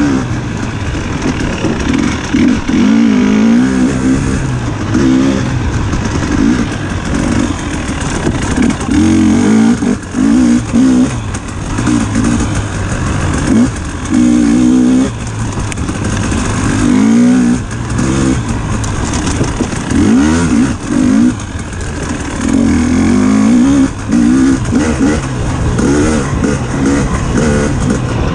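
Dirt bike engine heard from on the bike, revving up and down over and over, its pitch rising and falling every second or two as the throttle is opened and shut.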